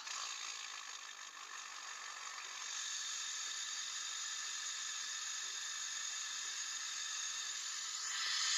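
Exhaust of a 2011 Ford F-250's 6.7-litre Power Stroke V8 turbodiesel rushing out of the tailpipe as a steady hiss, growing louder near the end.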